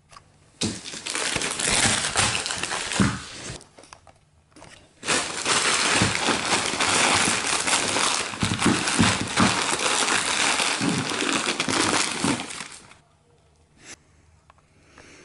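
Wrapping paper crinkling and crumpling as it is bunched up by hand, in two long spells with a short pause about four seconds in.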